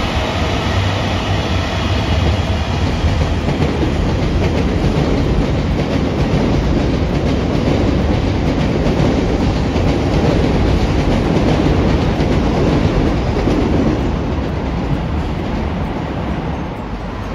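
A train running past, loud and steady, easing off over the last few seconds.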